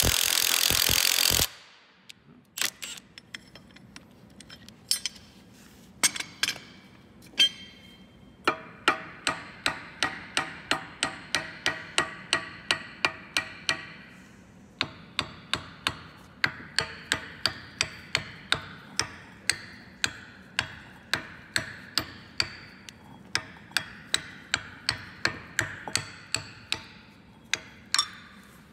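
A power tool runs and cuts off about a second and a half in. Then a hammer knocks on a rusted tapered steel bushing in an aluminum sheave: a few scattered blows, then steady tapping at about two blows a second with a short metallic ring, pausing briefly near the middle, to work the seized bushing loose from its taper.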